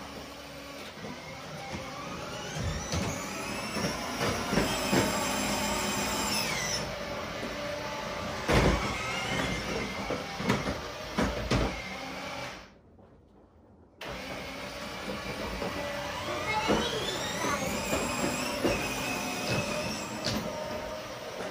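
Electric ride-on toy car's motor and gearbox whining, rising and falling in pitch as it speeds up and slows, with its plastic wheels rumbling and knocking on a wooden floor. The sound drops out suddenly for about a second midway, then the whine comes back.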